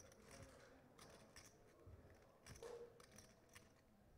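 Faint, irregular clicking of poker chips being handled at the table, over quiet room tone.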